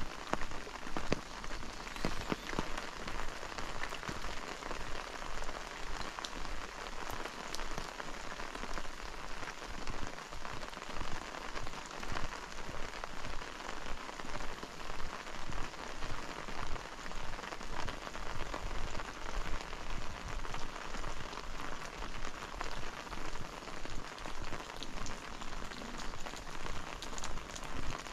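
Steady rain falling, with scattered drop ticks, over regular walking footsteps at about one and a half to two steps a second.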